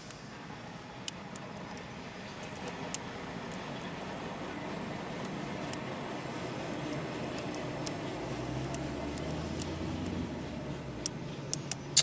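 A vehicle engine running nearby, slowly growing louder, with a low hum coming in about two-thirds of the way through. Over it, scattered sharp little metallic clicks of lock picks working a Lockwood 215A40 lockout padlock, several in quick succession near the end.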